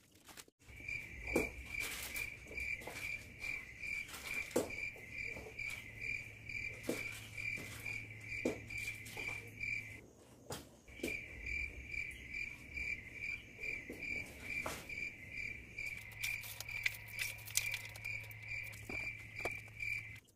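An insect chirping in a steady pulsing trill, about three pulses a second, breaking off for about a second midway. Scattered light splashes and patter of water from someone bathing out of a bucket.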